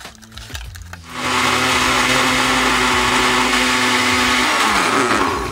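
Countertop blender running, blending a drink in its jar. The motor starts about a second in, runs steadily with an even hum, and winds down near the end as it is switched off.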